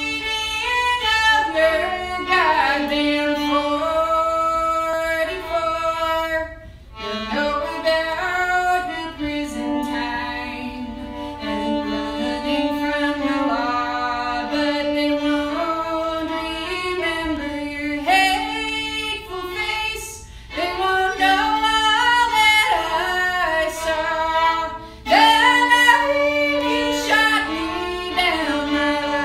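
A woman singing while accompanying herself on the fiddle, the bow holding steady sustained notes under her voice. The music briefly drops away about seven seconds in and again near the end before going on.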